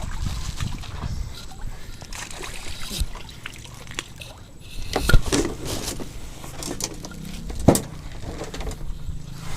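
Water sloshing and lapping against a small boat, with a few sharp knocks.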